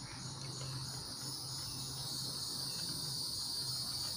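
Steady chorus of crickets chirping, a continuous high-pitched trill, with a faint low hum underneath.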